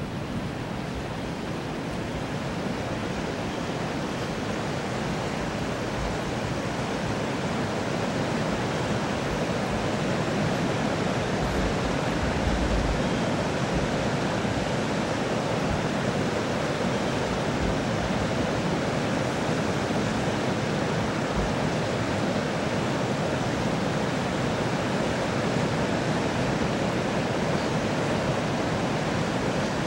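Steady rush of fast-flowing river water churning below a dam and spilling past a bridge pier. It grows a little louder over the first several seconds, then holds even.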